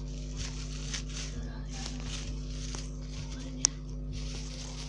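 Clear plastic packaging crinkling and rustling as a squishy toy is handled, with one sharp click about three-quarters of the way through.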